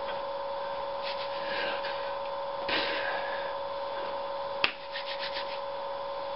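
Steady electrical hum and hiss with soft clothing rustles from arm movements about one and three seconds in. A sharp click comes about four and a half seconds in, followed by a quick run of faint ticks.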